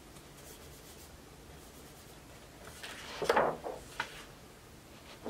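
A page of a large album photobook being turned by hand: a short paper swish about three seconds in, followed by a light tap.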